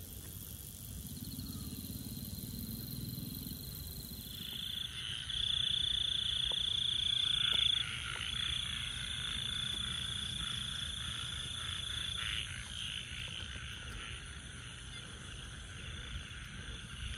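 Night chorus of insects and frogs: a steady high-pitched insect trilling, with a louder shrill trill coming in about four seconds in and easing off after about eight seconds.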